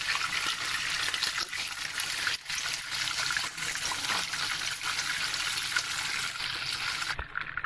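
Daing na queenfish (vinegar-marinated fish) frying in hot oil in a pan, with a steady, dense sizzle and crackle.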